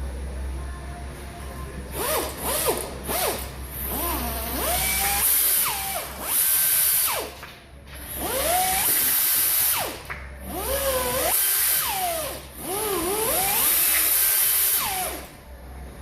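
Power drill running in about six short bursts, its motor pitch rising and falling with each squeeze of the trigger, as it backs out screws on the engine.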